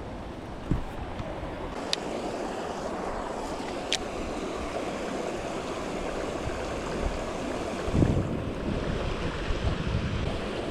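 Creek water rushing steadily over shallow shoals, with a few light clicks and a couple of brief low thumps.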